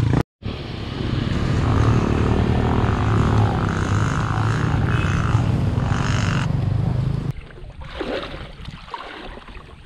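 A motor vehicle's engine running with a steady low drone, cutting off abruptly about seven seconds in. After that comes quieter sloshing and trickling of water as a bicycle is wheeled through floodwater.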